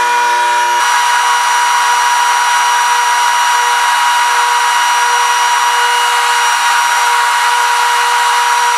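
Trim router running at full speed while mortising hinge recesses into the door edge: a loud, steady high-pitched whine that cuts off abruptly at the end.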